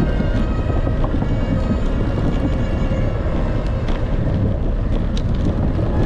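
Bicycle rolling over a wooden boardwalk: a steady rumble from the tyres running across the planks, mixed with wind on the microphone, with a few small clicks.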